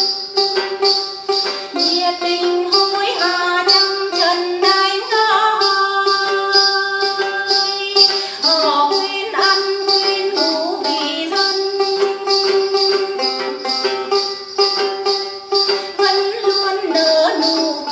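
Tày Then singing: a woman sings a gliding folk melody, accompanying herself on the đàn tính, a long-necked gourd lute, over a steady jingling beat of about three strokes a second.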